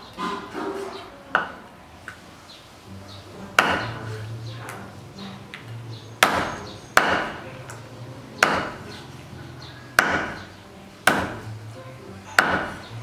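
Cleaver chopping raw chicken on a wooden chopping board: about eight sharp chops into the wood, spaced irregularly one to two seconds apart.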